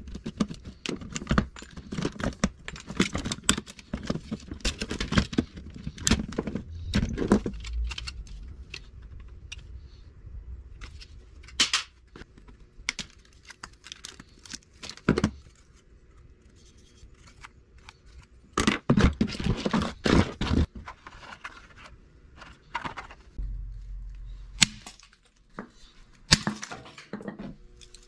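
Hand tools and electronic parts being worked over a plastic tray: irregular clicks, cracks and clatter from pliers and cutters prying and snipping at a TV circuit board and from loose components and wires being moved. The clatter comes in bursts, with a quieter stretch in the middle.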